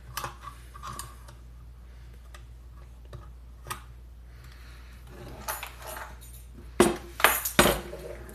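Metal parts of an SKS rifle being handled: scattered light clicks and clinks, then a few louder metallic clacks about seven seconds in.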